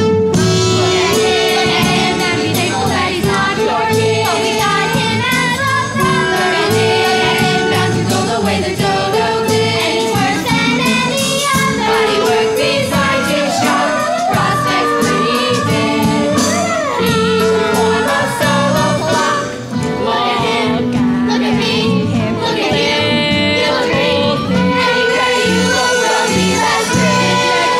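Children's chorus singing a stage-musical ensemble number over instrumental accompaniment.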